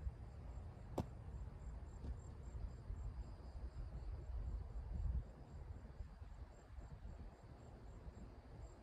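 Insects chirping faintly in a high, steady pulse of about four chirps a second, over a low rumble like wind on the microphone. One sharp click comes about a second in.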